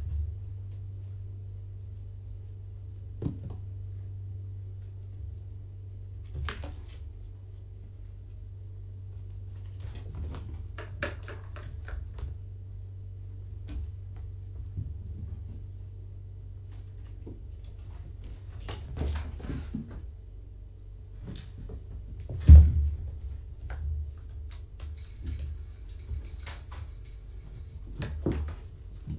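Kittens playing and pouncing around a room full of cat toys: scattered knocks, taps and thumps, with one heavy thump about two-thirds of the way through, over a steady low hum.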